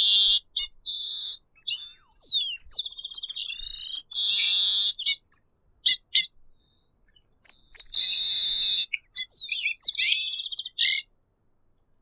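Red-breasted meadowlark singing: phrases of chirps and quick gliding whistles, each with a loud buzzy note, coming about every four seconds and stopping shortly before the end.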